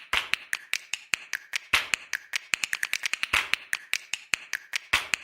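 Percussive music intro: a quick, even run of sharp clicks and short hissy hits, about four to five a second, with no bass or melody yet.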